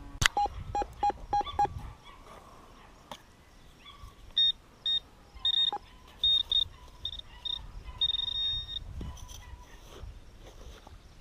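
Metal detector beeping as it is swept over buried metal. First comes a quick run of short low beeps, then a string of higher-pitched beeps, then one longer high tone near the end.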